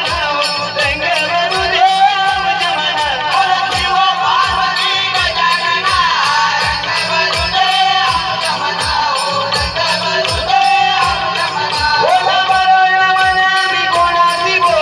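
Konkani naman folk song sung live: singing over a steady hand-drum beat and evenly spaced jingling of small hand cymbals (taal).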